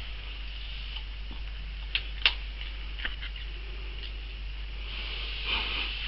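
Small dog handling or chewing a treat: a few sharp clicks about two seconds in and once more a second later, and a brief rustle near the end.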